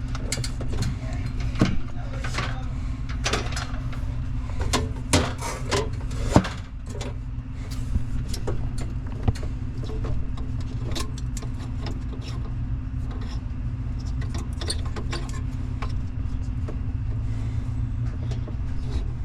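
Old Lennox HVAC unit running with a steady low electrical hum, while short clicks and knocks of handling come and go over it. The hum cuts off suddenly at the very end.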